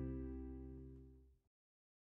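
The last chord of the closing music ringing out and fading away, stopping about one and a half seconds in.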